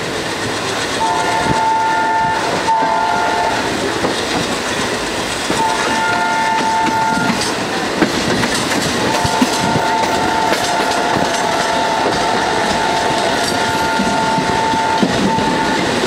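Diesel locomotive horn sounding in a series of blasts: a short double blast, one of under two seconds, then a long blast of about six seconds. Underneath run the rumble and clickety-clack of the passenger coach's wheels on the rails, heard from inside the moving train.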